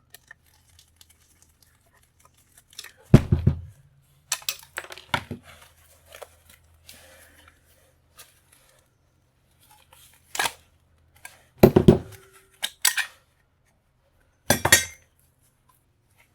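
Metal parts of a brass fixture knocking and clanking as they are handled while its screws are removed: a string of sharp, separate knocks, the loudest about three seconds in and again near twelve seconds.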